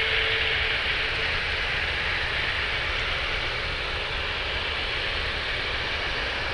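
Boeing 747-400F freighter's four turbofan jet engines running at taxi power: a steady jet rush with a high, slightly rising whine, and a lower hum that fades out about a second in.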